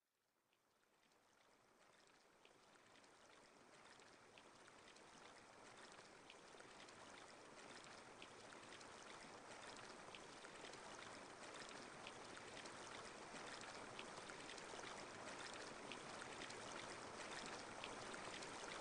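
A stream's running, trickling water fades in slowly from silence and grows steadily louder.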